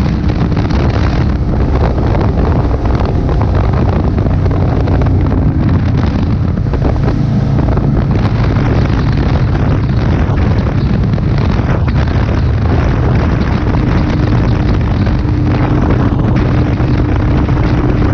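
Kawasaki Vulcan 900 Classic's V-twin engine running steadily at highway cruising speed, with wind rushing over the microphone.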